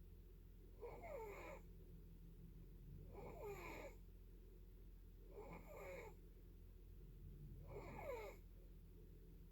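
Faint snoring: four breaths, about two and a half seconds apart, each carrying a thin tone that slides down in pitch.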